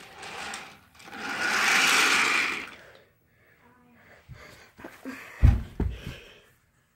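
A hiss that swells and fades over about a second and a half, then a run of short knocks and two loud, dull thumps near the end, typical of a phone microphone being bumped and handled.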